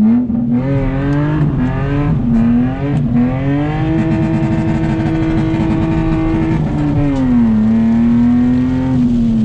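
Lexus IS300's inline-six engine pulling the car on the road, heard from inside the cabin. The engine note rises and dips a few times early on, holds higher and steady through the middle, then drops away about seven seconds in.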